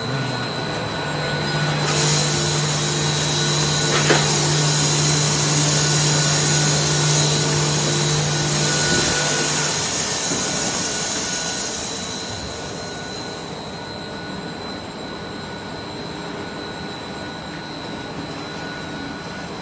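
A double-screw co-extrusion film blowing machine running: a steady whir of motors with a loud hiss of air and a low hum. About ten to twelve seconds in the hum stops and the hiss fades, leaving a quieter machine drone with a thin high whine throughout.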